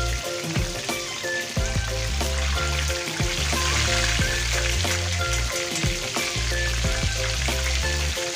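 Battered stuffed tofu deep-frying in hot oil in a wok, with a steady sizzle. Background music with a bass line plays over it.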